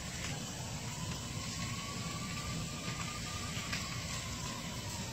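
Steady hissing, rushing noise from a house fire burning in the wreckage of an exploded home. A faint siren slowly rises and falls over it.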